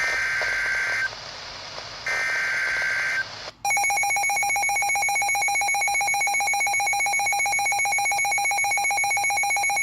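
Two bursts of the Emergency Alert System's SAME header: one-second digital data screeches, each a rapid warble between two high tones, about a second apart, marking the start of a new weather alert. About three and a half seconds in, a loud, rapidly pulsing electronic alarm beep starts and keeps going, typical of a weather radio receiver's alert alarm set off by the header.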